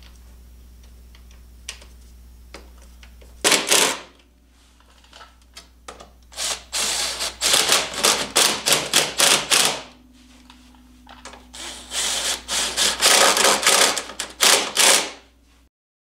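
Cordless power driver running the 10 mm chain case cover bolts in. There are a few faint clicks first, a short loud burst about three and a half seconds in, then two rattling runs of a few seconds each.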